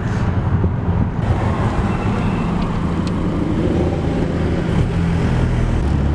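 Car engine and road noise heard from inside the cabin while driving: a steady low drone whose engine note shifts pitch around four seconds in and again near the end.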